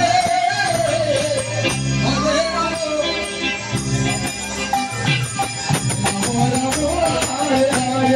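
Bengali nam kirtan played live: a sung, wavering devotional melody over khol drums and jingling hand cymbals, in a steady rhythm.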